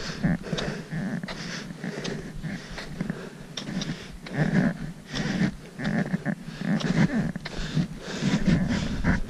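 A hiker breathing hard close to the microphone while climbing, in irregular puffs about every half second to a second, with footsteps in packed snow.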